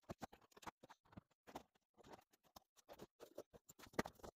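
Faint, quick, irregular clicks and taps of plastic Kato Unitrack N scale track sections being pried up from the layout and set into a plastic tote of track, with one sharper clack about four seconds in.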